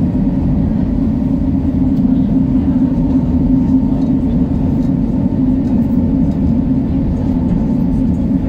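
Steady low rumble and hum of an open-top sightseeing vehicle under way, heard from its open upper deck.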